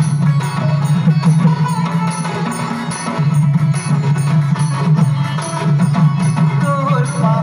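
Live Sambalpuri folk drumming: a troupe of dhol and other barrel drums beats out a steady, driving rhythm of about two to three strokes a second. A brief melodic line slides in near the end.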